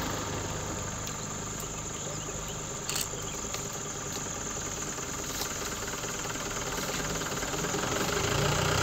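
A vehicle engine idling steadily. Its low rumble grows louder near the end, with a short click about three seconds in.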